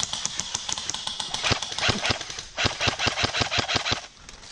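Airsoft guns firing in rapid bursts: a fast rattle of sharp shots that pauses briefly about two and a half seconds in and dies down near the end.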